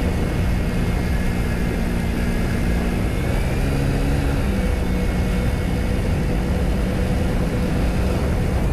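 Kymco Super Z 125 scooter's single-cylinder engine running under way, with steady wind and road noise on the microphone. The engine drone shifts in pitch a few times.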